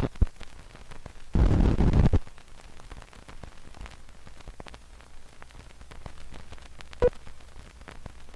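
Steady hissing static, with a loud burst of noise lasting under a second about a second and a half in that starts and stops abruptly, and a single sharp pop about seven seconds in.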